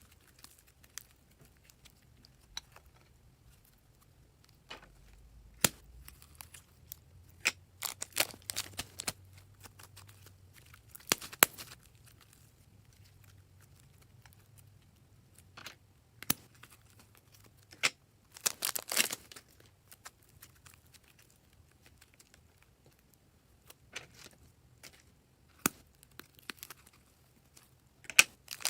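Slime being squeezed and stretched by hand: scattered sharp clicks and pops, and a few short clustered bursts, with quiet gaps between them.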